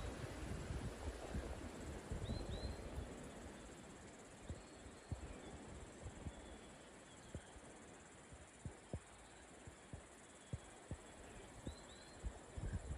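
Faint forest ambience: a steady high insect drone, with a bird giving a pair of short chirps twice, about two seconds in and near the end. Wind rumbles on the microphone for the first few seconds, and scattered soft low thumps follow.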